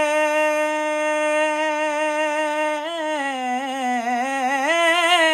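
A man singing an Urdu naat without words for the moment, holding one long vowel at a steady pitch. About three seconds in, the note dips and wavers in an ornament before settling back.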